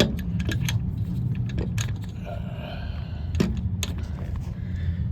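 Small metal clicks and clinks, a handful of separate ones, as a long steel pin is worked into the front hole of a storm door closer and its bracket. Under them runs a steady low rumble.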